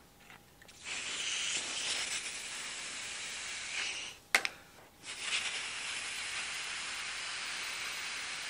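A person blowing hard through the hole of an empty sewing spool: two long, steady breathy hisses of rushing air, each about three and a half seconds, separated by a short pause for breath with a sharp click in it.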